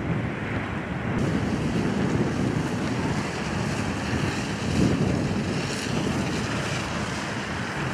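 Steady rushing of a fire hose stream of water hitting a smouldering garbage truck, with a low rumble underneath; the hiss grows brighter about a second in.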